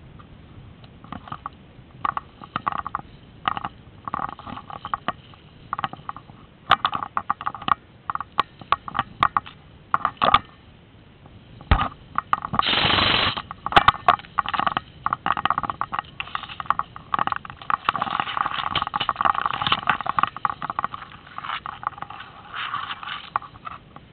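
Tall grass rustling and scraping against the camera and rifle as the player pushes through it, in irregular clicks and brushes, with one louder scrape a little past halfway and a denser stretch of rustling near the end.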